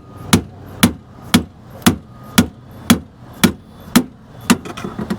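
Hammer striking a pry bar braced against the fuel pump lock ring, a steady run of sharp strikes about two a second, knocking the ring around to loosen it.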